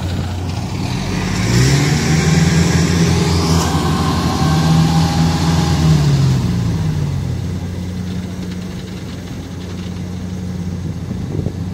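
Small tracked rice harvester's engine running as the machine crawls through the muddy paddy, revving up about a second and a half in and easing back down around six to seven seconds in.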